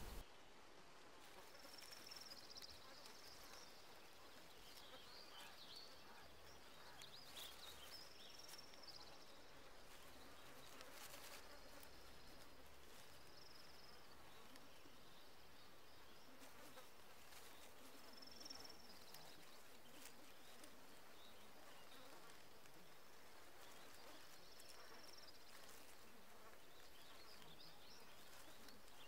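Near silence: faint outdoor ambience with thin, high chirps every few seconds.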